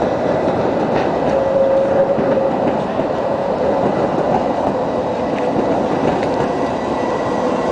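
Articulated street trams running over street-level track, a steady rumble of wheels on rails with a faint held tone.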